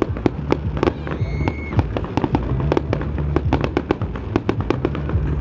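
Fireworks display: shells bursting in a rapid, irregular string of sharp bangs and crackles, several a second, over a steady low rumble. A short high whistle comes about a second and a half in.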